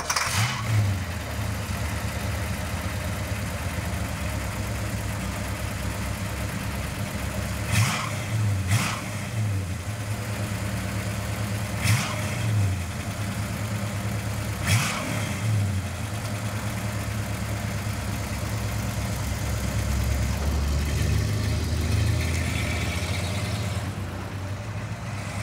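Ford Mustang's 428 Cobra Jet V8 running at a lumpy idle and revved hard in short blips, about four times, while the rear tires spin in a smoky burnout. The engine note grows fuller and louder near the end as the car pulls away.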